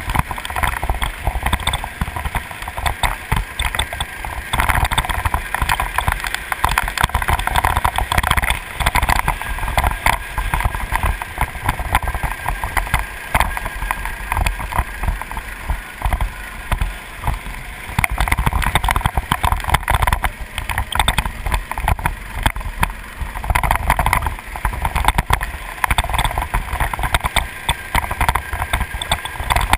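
Go-kart engine running at racing speed, its revs rising and falling through the corners, with wind buffeting the microphone.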